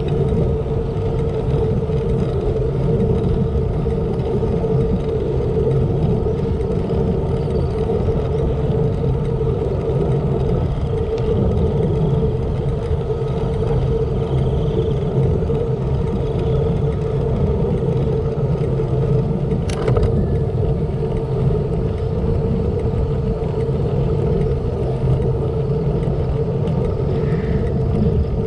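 Wind rushing over a GoPro Hero7's microphone, with tyre noise from a road bike rolling on asphalt: a steady low rumble with a constant hum. A single sharp click comes about twenty seconds in.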